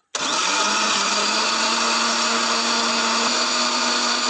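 Electric kitchen blender switching on abruptly and running at a steady speed, blending chopped sintrong leaves with water.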